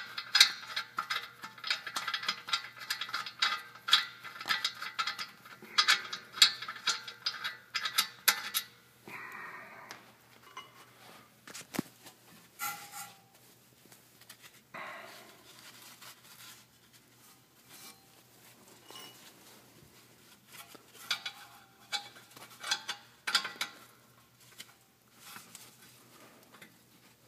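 Metal clinking and rattling of rear brake caliper hardware being worked by hand, dense and ringing for the first nine seconds or so, then scattered clanks.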